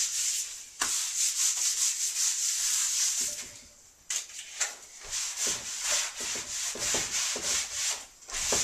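Quick back-and-forth scrubbing strokes on a wooden butcher-block chopping board, with a gritty hiss from coarse kosher salt still on the wood. The strokes stop briefly about three and a half seconds in, then start again.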